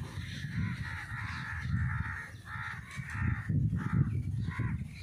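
Crows cawing in a string of harsh, repeated calls, about two a second, over a low rumble.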